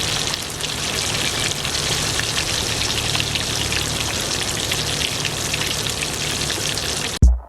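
Fish frying in hot oil: a steady sizzle full of fine crackles, the half-frying step of meen pollichath. It cuts off abruptly near the end with a short low thump.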